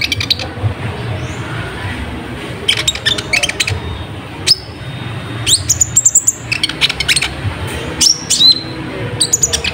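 Kolibri ninja (konin) songbird singing vigorously: bursts of rapid, sharp high chirps and trills broken by short rising whistled notes, over a steady low background rumble.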